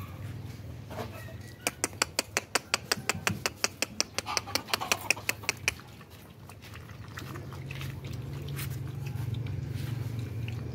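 Puppies eating rice from a plate: a fast, even run of sharp smacking clicks, about six a second, for about four seconds, then fainter scattered clicks over a low steady hum.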